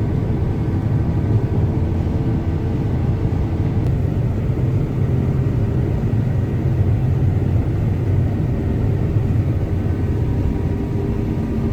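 Combine harvester running steadily, with a continuous low engine drone and a faint even hum.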